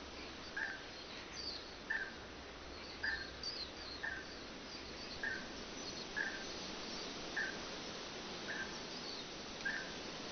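Birds calling: one bird repeats a short call about once a second, with scattered higher chirps from other birds over a steady background hiss.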